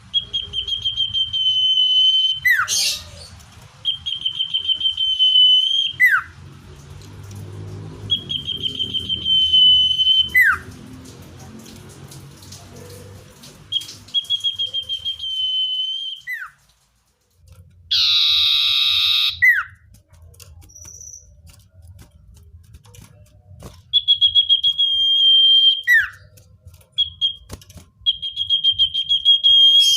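Common iora singing: a long, steady, high whistle held for about a second and a half that drops sharply at the end, repeated about six times. Midway there is one short, harsh, rasping burst.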